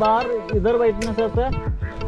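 Background music: a melody that bends in pitch over sustained chords and a low drum beat.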